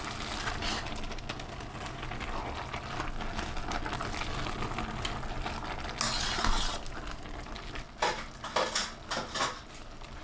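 A spoon stirring chopped mustard greens in a stainless steel pressure cooker, with steady scraping and clinking against the pot. A louder scrape comes about six seconds in, then a few sharp knocks near the end.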